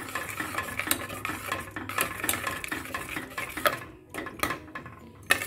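Metal spoon stirring thick, creamy curry gravy in an open pressure cooker, scraping and clinking against the pot's sides and base in an uneven run of clicks. It is stirred without pause because the cream has just gone in and could split.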